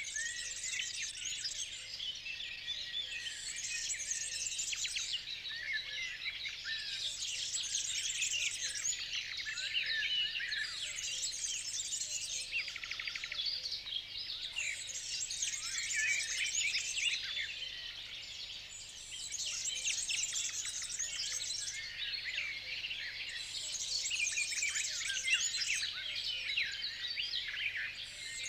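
A dense chorus of small birds chirping and singing, many calls overlapping, swelling and easing every few seconds.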